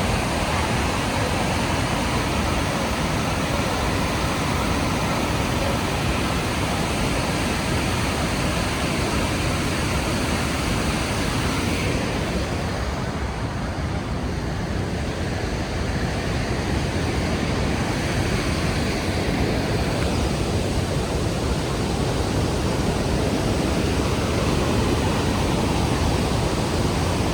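Rhine Falls' waterfall: a steady, heavy rush of falling water. Its hiss dulls for a few seconds near the middle, then comes back.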